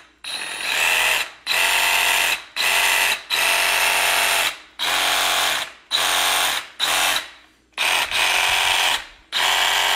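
Milwaukee M12 FUEL Hackzall brushless reciprocating saw running free in the air with no load, blade stroking. The trigger is squeezed in a series of short bursts, about one to two seconds each. The motor whine stops sharply between bursts, and the first burst builds up over about a second.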